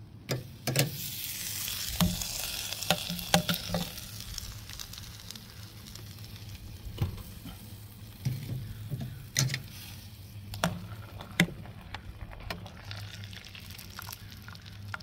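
Hot brown sugar and honey barbecue sauce sizzling in a steel pot as smoked chicken is dipped in, loudest in the first few seconds. Several sharp clicks and knocks of the utensil against the pot.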